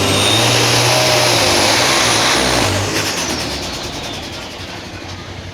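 A pulling tractor or truck engine runs at full throttle with a high whine that rises and then falls. The sound is loud for about three seconds, then fades away.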